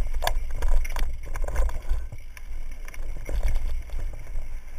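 Mountain bike rattling and knocking as it descends a rocky dirt trail, with irregular clatters over the rocks. A steady low rumble of wind buffets the helmet-mounted microphone.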